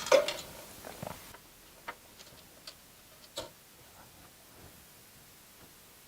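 A quick cluster of clicks and knocks, then a few scattered light clicks over the next three seconds: small metal parts and tools being handled while fitting PC components into a computer case.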